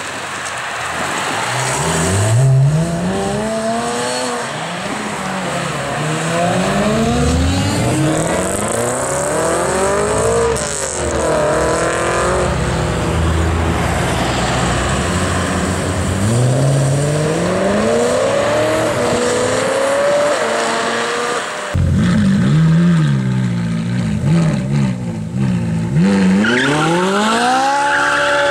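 High-performance sports cars accelerating hard away one after another, each engine climbing through the revs and dropping back at the gear changes; among them a Porsche 911 GT3 RS flat-six and a BMW M3 GTS V8.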